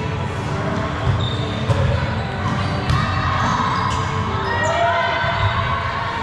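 Indoor volleyball rally sounds in a large, echoing gym: sharp ball hits and short high squeaks of shoes on the court floor, over players' voices and general gym chatter.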